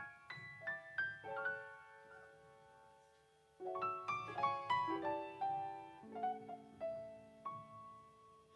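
Solo piano intro: a falling run of struck notes that ring and die away, a short lull, then a second flurry of notes about three and a half seconds in, settling into held chords with low bass notes under a few single notes.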